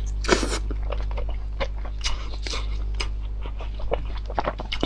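Close-miked eating: a person chewing and biting food, heard as an irregular string of short clicks and crunches over a steady low hum.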